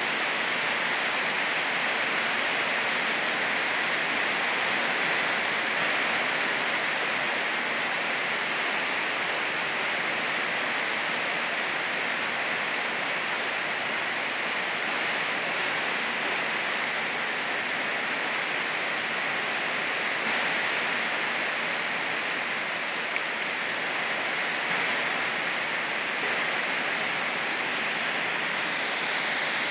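Heavy rain pouring steadily on trees and foliage, a dense, unbroken hiss.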